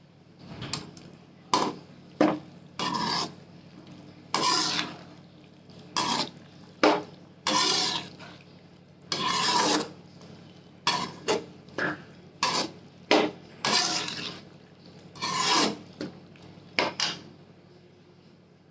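A spoon scraping against a metal cooking pot in repeated, irregular strokes as cooked vegetables are added and stirred in.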